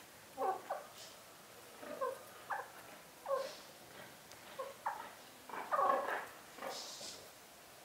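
Domestic chickens clucking: a string of short, low clucks spaced irregularly, with one louder, longer call about six seconds in.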